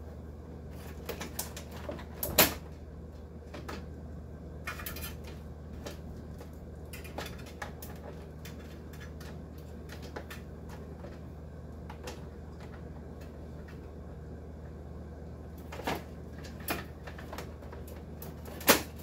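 Clicks, knocks and clatter of metal and plastic parts being handled while a dehumidifier is taken apart, scattered and irregular, with two louder knocks about two and a half seconds in and near the end. A steady low hum runs underneath.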